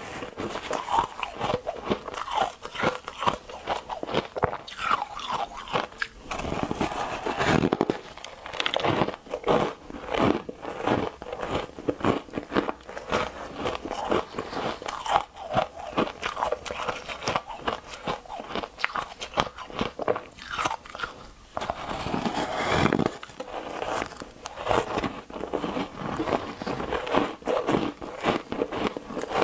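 Close-up biting and chewing of a block of frosty green ice: a dense, irregular run of crisp crunches as bites are taken and chewed.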